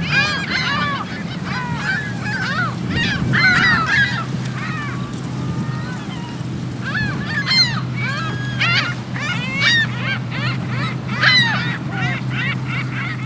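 A flock of seagulls crying loudly, many short overlapping calls one after another, over a steady low rumble.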